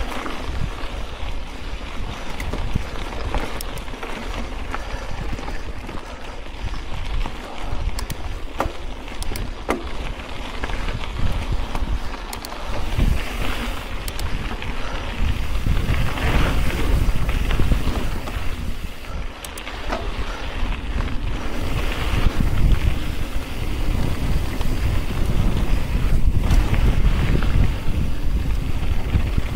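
Wind noise buffeting the microphone of a mountain biker's camera while riding dirt singletrack, over the rolling of the tyres on the trail, with scattered sharp clicks and rattles from the bike.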